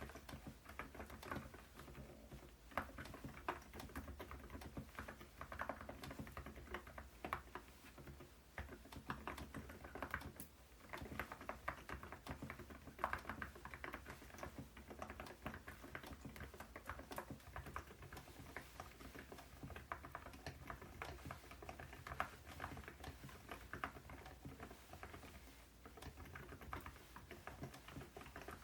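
Continuous typing on a Cidoo Nebula mechanical keyboard fitted with Epomaker Nude Rosa low-noise silent switches and XDA-profile keycaps. It is a steady, quick run of quiet keystrokes.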